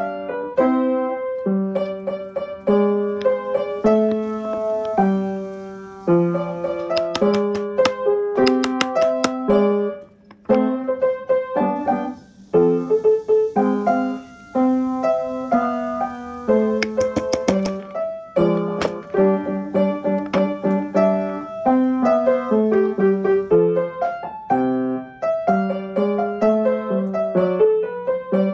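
Background music: a gentle solo piano tune, notes struck and fading one after another.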